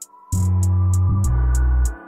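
Background music with a steady beat: evenly ticking hi-hats, joined about a third of a second in by a deep, sustained bass line.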